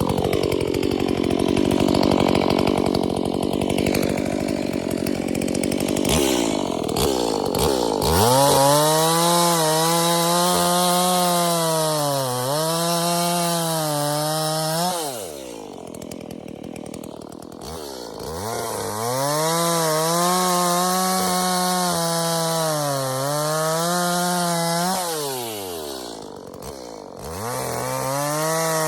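Chainsaw cutting through a fallen ash trunk at full throttle, its engine pitch sagging and recovering as the chain bites into the wood. It eases off twice, then revs up again.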